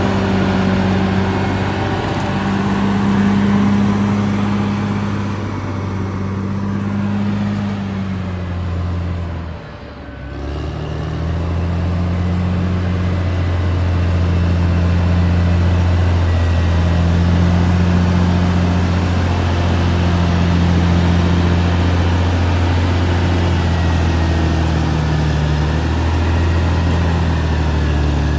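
Caterpillar D6R XL bulldozer's diesel engine running steadily with a deep hum. The sound drops briefly about ten seconds in, then comes back up.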